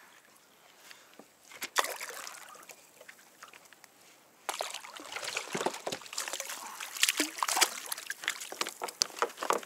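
Water splashing and sloshing beside a kayak, with small clicks and knocks of gear being handled. A sharp knock and splash come about a second and a half in, and the splashing grows busier from about four and a half seconds.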